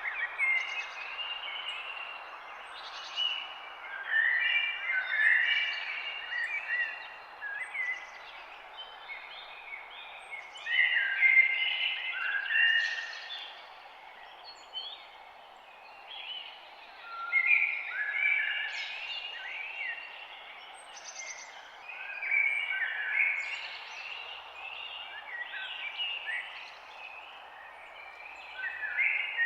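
Several birds chirping and singing in overlapping short phrases and trills, in loud clusters every few seconds, over a steady background hiss.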